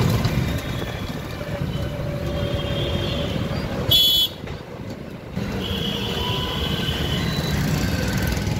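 Steady rumble of vehicle traffic, with a short sharp burst about four seconds in followed by about a second that is quieter.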